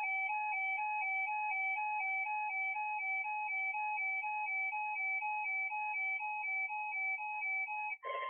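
Electronic two-tone alert sound, a hi-lo warble switching evenly between two pitches about twice a second. It cuts off near the end.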